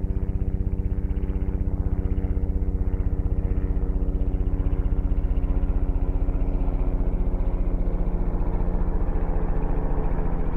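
Helicopter main rotor running steadily, its blades giving a rapid, even beat of low-pitched pulses over a steady hum. This is the impulsive low-frequency blade noise, from rotor-wake interaction, that gives helicopters their wop-wop sound.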